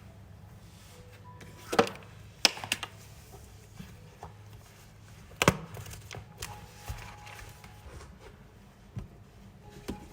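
A few sharp knocks and clacks of hard objects being handled and set down on a hard surface, the loudest four in the first half, followed by scattered softer taps.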